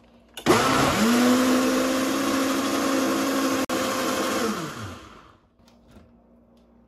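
Countertop blender motor blending a full jug of soymilk smoothie mix. It starts about half a second in and spins up quickly to a steady speed, runs for about four seconds, then winds down in pitch and stops.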